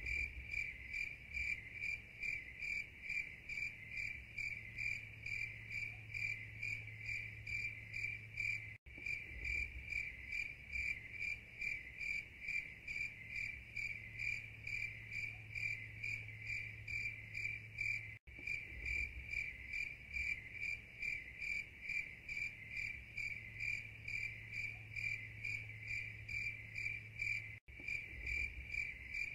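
Insects chirping in an even, rapid pulsing rhythm: a recording that loops about every nine and a half seconds, with a brief dropout three times where it repeats.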